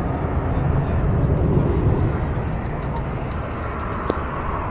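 Jet airliner engines heard from a distance, a steady low rumble. A brief click about four seconds in.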